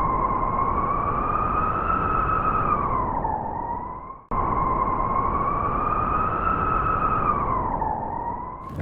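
Two long wolf howls, one after the other, each holding a high, slightly wavering pitch before dipping at the end; the second is almost an exact copy of the first.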